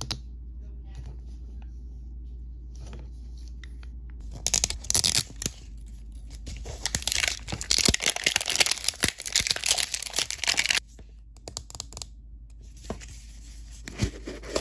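Clear plastic shrink-wrap being torn and peeled off an L.O.L. Surprise toy ball, crackling and crinkling in quick spurts. It starts about four seconds in and stops for a few seconds around eleven seconds, and more crinkling handling follows near the end.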